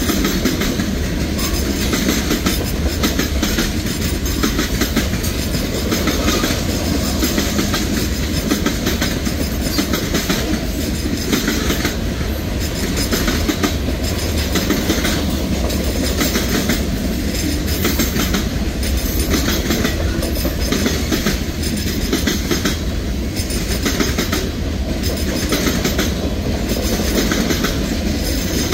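Manifest freight train's covered hoppers and tank cars rolling past close by: a steady heavy rumble of wheels on rail, with a regular clickety-clack as the wheels cross rail joints.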